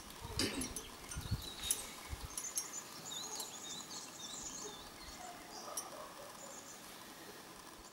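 Outdoor ambience of small birds chirping in short, high calls, with a few sharp clicks and some low wind rumble on the microphone in the first two seconds.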